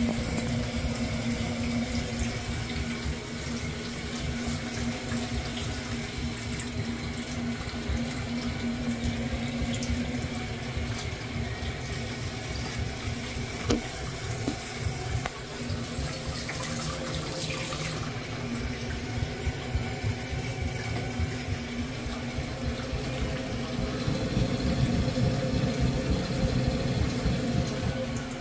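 Steady rush of running water from an open hot-water tap, with a low steady hum underneath, while the gas combi boiler is lit on hot-water demand.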